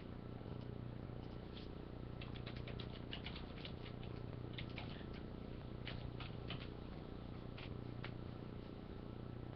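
Trading cards being handled and flipped through, giving a scattering of light clicks and slides over a steady low hum.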